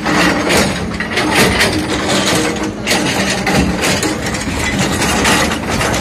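Excavator-mounted hydraulic breaker hammering rock: a loud, rapid, uneven train of metallic blows.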